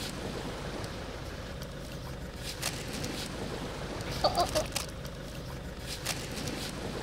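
A kitchen knife slicing a squid on a wooden cutting board, with a few light clicks of the blade against the board, over a steady background rumble. A little past the middle comes a brief high sound in three quick peaks.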